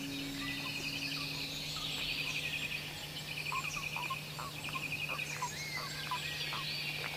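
Wildlife calls: short buzzy trills repeating about once a second, with scattered short chirps, over a faint steady hum.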